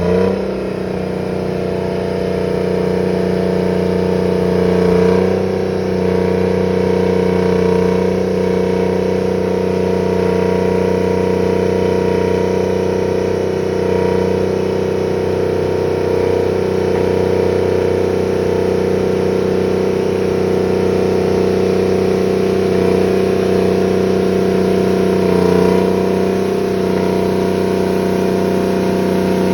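Terex 82-20 crawler bulldozer's diesel engine running steadily under working load, swelling briefly a few times as the load changes.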